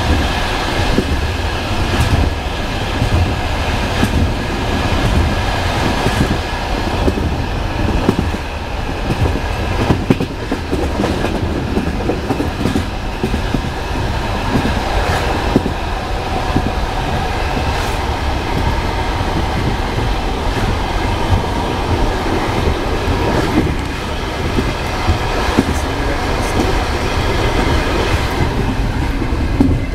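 Railway wheels clattering over rail joints: a steady heavy rumble broken by repeated sharp knocks as the train runs along the track.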